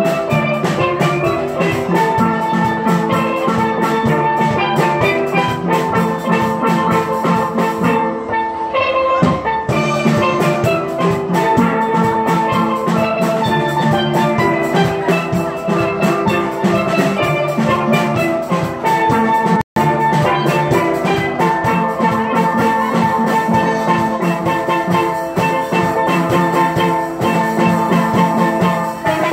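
A steel band playing: several steel pans ring out melody and chords over a drum kit keeping the beat. The sound cuts out for a split second about two-thirds of the way in.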